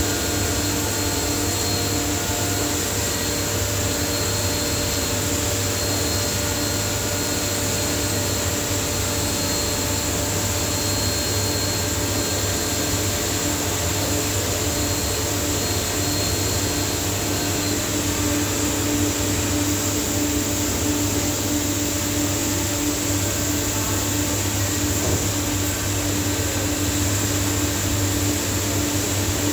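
Ghiringhelli CNC centerless grinding machine running at steady speed: a constant machine hum with a few steady tones over an even noise.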